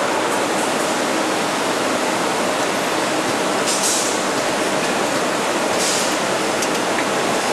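Steady factory-floor noise from automated injector assembly machinery, with two brief hisses about four and six seconds in and a few faint ticks.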